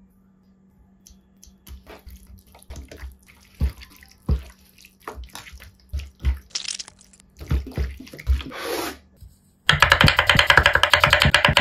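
A spoon and then fingers mix raw chicken with spices and marinade in a plastic bowl, giving scattered wet squishes and light knocks. Near the end a knife starts chopping onion on a wooden cutting board in a fast, even run of loud knocks.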